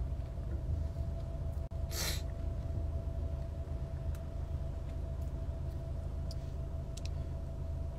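Steady low rumble of a car's cabin with a faint steady hum, and one short breathy rush of noise about two seconds in.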